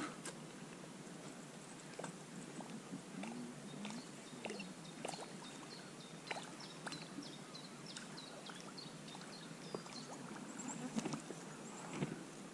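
Quiet river water gurgling, with scattered light clicks and knocks. A run of short, high chirps is heard through the middle.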